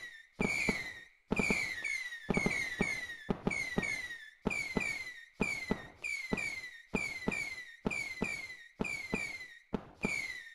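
Fireworks going off one after another, one or two a second. Each is a sharp pop with a short falling whistle that fades within about half a second.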